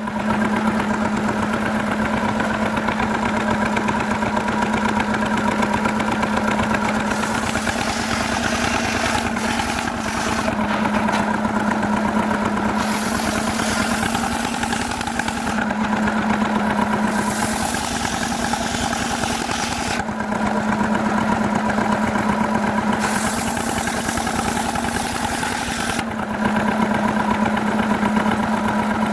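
A Stihl two-stroke chainsaw running steadily at high revs, its pitch dipping and rising slightly every few seconds.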